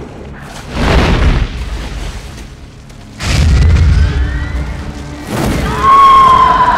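Film explosion effects: a deep boom about a second in, then a bigger boom at about three seconds that rumbles on, as a wooden building blows up in flames. Dramatic film music plays over it, with a loud held high note coming in near the end.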